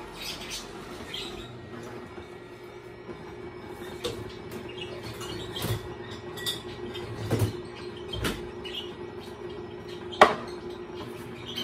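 Tribest Green Star Elite twin-gear juicer running with a steady motor hum while it crushes carrot, with short squeaks and scattered cracks and knocks. A glass jar is set down with a sharp knock about ten seconds in.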